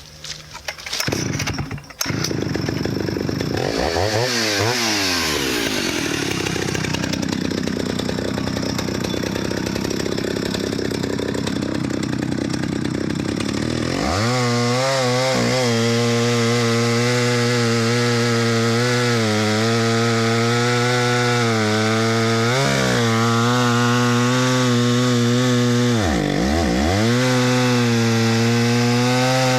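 Stihl 051 AVE 89 cc two-stroke chainsaw starting up about two seconds in and revving, then run hard while cutting into red oak. Its engine settles into a steady high-throttle tone partway through and dips briefly twice near the end.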